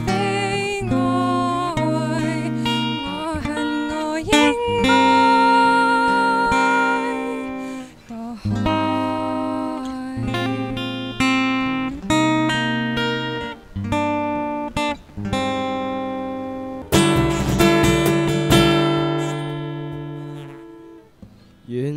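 A young woman singing a Cantonese pop song into a microphone, accompanied by a live acoustic guitar. About 17 seconds in, the guitar starts a new song's introduction and fades down near the end.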